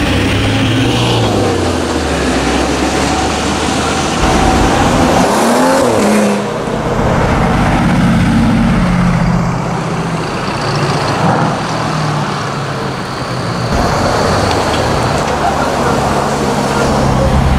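Supercar engines pulling away through city traffic in turn: a Lamborghini Huracán's V10, a Mercedes-AMG GT's V8, then a yellow Porsche 911. A sharp rising rev comes about six seconds in.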